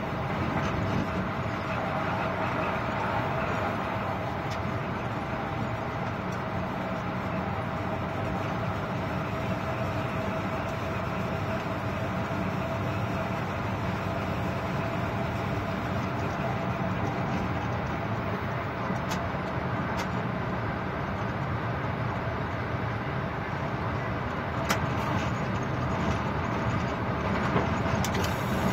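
Steady running noise of a passenger train heard from inside the locomotive cab, with a faint steady hum and a few sharp clicks in the second half.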